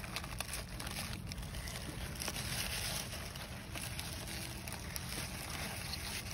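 Lettuce leaves rustling and snapping as they are picked by hand, loudest about two to three and a half seconds in, over a steady low rumble.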